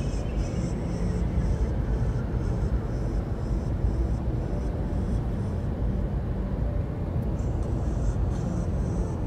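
Steady road and engine rumble inside a moving car at cruising speed.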